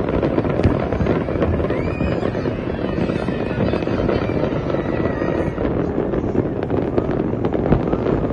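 Fireworks display: a dense, continuous crackle of many bangs and pops going off together, with a few whistling tones mixed in.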